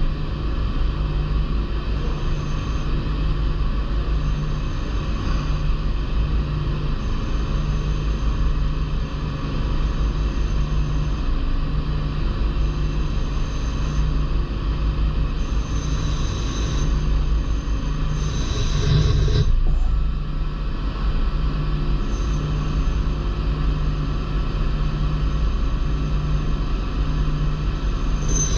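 DMG Mori NLX2500 CNC turning centre machining a small part: a steady low hum, with a high-pitched whine that comes and goes every second or two and a louder stretch about two-thirds of the way through.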